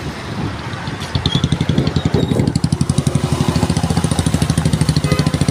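Motorcycle engine running at low speed with an even, rapid pulse, which sets in about a second in after a short stretch of wind and traffic noise.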